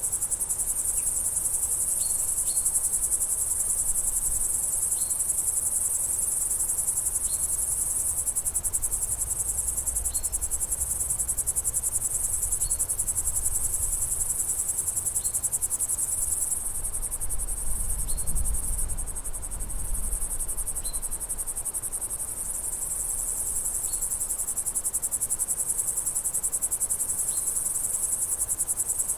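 A dense, steady chorus of crickets trilling high, with a short high note repeating every two to three seconds over it, and a low rumble rising briefly around the middle.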